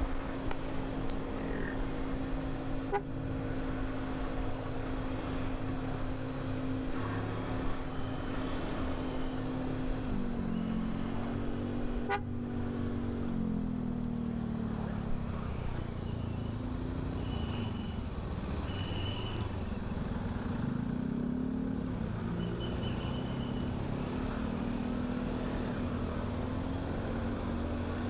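Kawasaki Versys-X 250's parallel-twin engine running at a steady cruise. Its pitch drops about ten seconds in as the bike slows, then rises and falls with the throttle through traffic, over steady road and wind noise.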